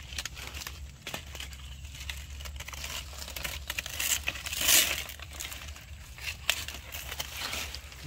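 Stiff pineapple leaves rustling and crinkling as hands work in among the plant to cut the fruit with scissors, with many small clicks and crackles and one louder rustle about halfway through.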